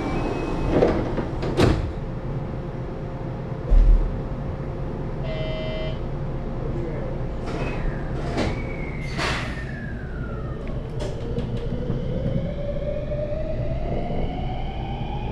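JR 223-series electric train setting off. A few sharp clicks and a dull thump in the first four seconds, then the traction motor whine rises steadily in pitch from about nine seconds in as the train accelerates away from the station.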